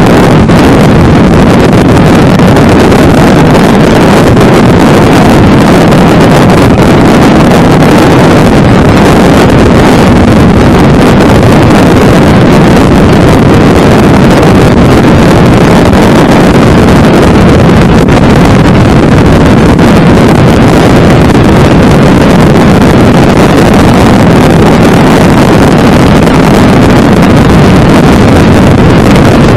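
Very loud, steady rumbling rush of wind on and around a car, so strong that it overloads the microphone, with no letup.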